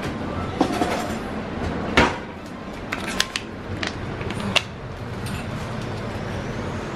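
Small clicks and knocks of a plastic wet dog-food tray and bowls being handled and set on a tile floor, with one sharper knock about two seconds in, over a steady background hum.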